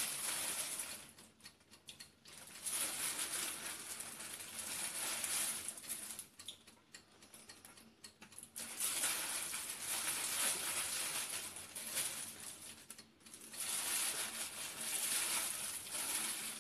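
A plastic bag of marinated chicken wings rustling and crinkling in several stretches of a second or more as the wings are pulled out of it by hand.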